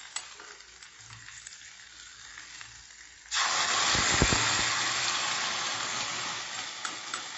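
Hot coconut-oil tempering (mustard seeds, urad dal, curry leaves, red chillies) tipped from a small iron pan into a pot of stew: a sudden loud sizzle about three seconds in that slowly dies down, after a few faint clinks of the pan.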